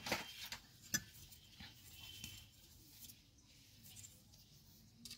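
Faint handling sounds of a brass fishing reel being set down on a wooden surface: a sharp click near the start and another about a second in, then light rustling and small ticks.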